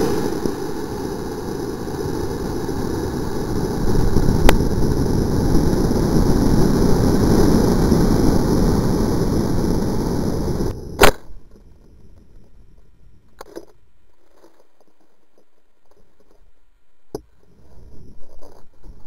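Model rocket flight heard from its onboard camera: a steady rushing noise as the rocket flies on its Estes C6-3 motor, a sharp pop about four and a half seconds in, timed like the motor's ejection charge, and more rushing on the way down. About eleven seconds in comes one hard knock as the rocket hits the ground, after which it goes much quieter, with a few small knocks.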